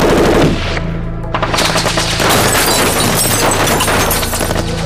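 Rapid automatic gunfire that comes thick and fast from about a second and a half in, over a low, steady music drone.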